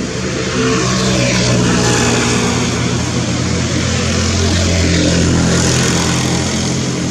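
A motor vehicle engine running steadily nearby, a low even hum with a broad hiss over it, getting a little louder about half a second in.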